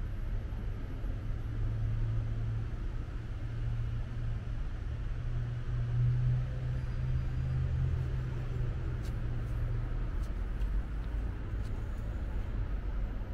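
Low, steady rumble of city road traffic, swelling briefly about six seconds in, with a few faint ticks later on.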